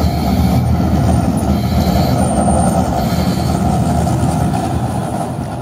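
Recorded rocket-launch rumble: a loud, deep, steady roar that fades out near the end.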